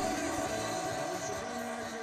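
Background dance-pop music cuts off at the very start, leaving a fading tail with a faint wavering tone that dies away.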